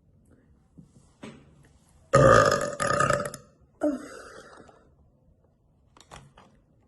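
A woman burping: a long, loud belch about two seconds in, broken briefly in the middle, then a shorter, quieter burp right after.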